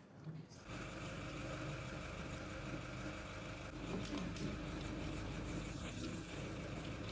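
An engine idling steadily. It starts under a second in, after a brief quiet moment.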